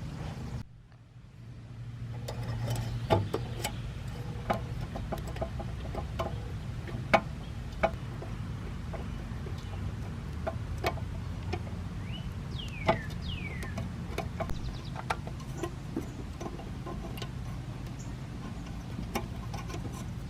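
Scattered light clicks and taps of thin metal gas tubing and fittings being handled and worked into place, over a low steady hum, with a few short high squeaks.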